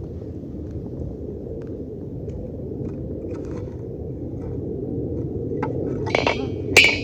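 Wood fire burning with a steady low rush and scattered faint crackles, then louder metal scraping and clinking about six seconds in.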